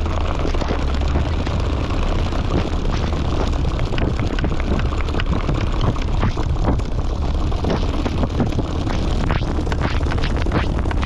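Tyre chains tapping on the snowy road with rapid, irregular clicks over the steady rumble of a car driving.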